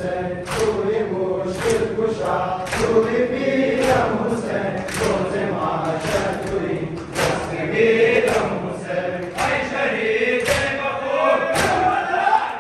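Men's voices chanting a Shia Muharram lament (noha) together, with chest-beating (matam) slaps from many bare-chested men falling in time about once a second.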